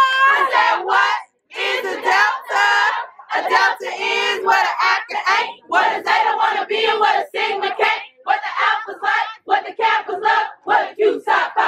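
A group of women chanting and calling out together in short rhythmic phrases, a sorority chant, with excited shouts from the crowd around them.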